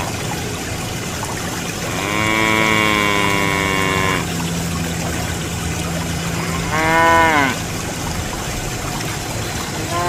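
Cow mooing twice, a long drawn-out moo about two seconds in and a shorter one about seven seconds in, over steady pouring and splashing water from the mini hand pumps' spouts into a basin.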